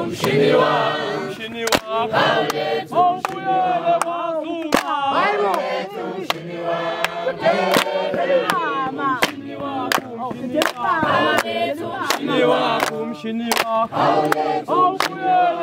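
A crowd singing a chant together in chorus, punctuated by sharp hand claps.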